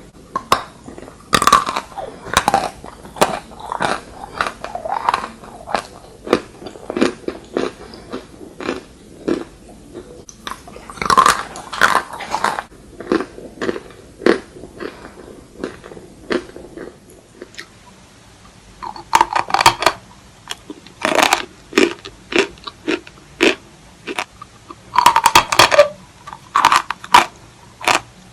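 Close-miked crunching and chewing of chalk: a rapid run of sharp, brittle cracks, with louder clusters of crunches about four times, about 1.5, 11.5, 19.5 and 25.5 seconds in, between stretches of quieter chewing.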